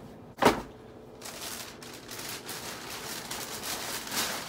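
A single sharp thump about half a second in, then a thin plastic shopping bag rustling and crinkling as hands rummage in it.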